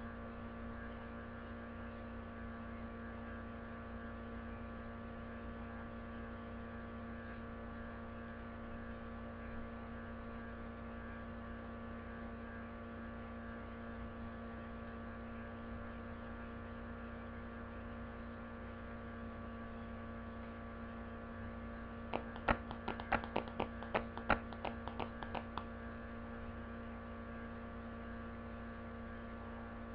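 Steady electrical hum with many overtones, and a quick run of about a dozen sharp clicks a little past two-thirds of the way through, lasting about three seconds.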